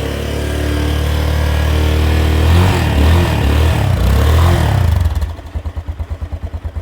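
Italika DM200 motorcycle's 200 cc single-cylinder engine through its stock muffler, revved up and down a few times, then dropping back to a pulsing idle about five seconds in. The exhaust is unmodified, which the owner finds very quiet.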